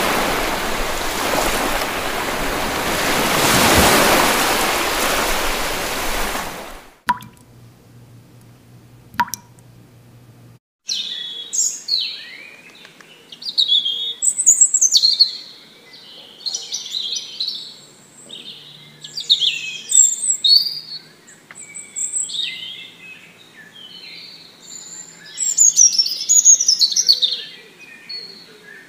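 A loud, steady rushing noise cuts off about seven seconds in. After two clicks and a short silence, songbirds chirp and sing on and off, with quick falling whistled notes.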